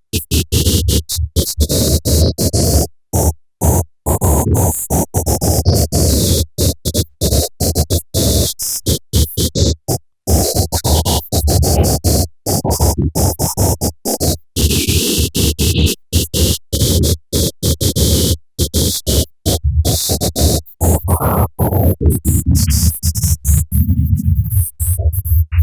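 Harsh, crackling electronic noise over a steady low hum, chopped by many abrupt cut-outs; the hiss thins out near the end.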